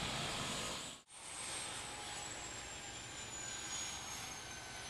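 Helicopter running on the ground just after landing: steady rotor and engine noise. The sound cuts out for an instant about a second in, and after that a thin high whine slowly falls in pitch.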